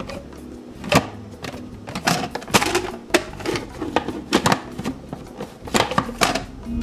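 Irregular sharp clicks and taps, about two or three a second, over faint low background music.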